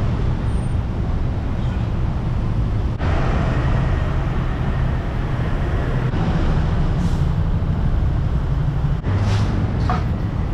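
Steady city street traffic noise, mostly low-pitched, with its texture shifting abruptly every few seconds.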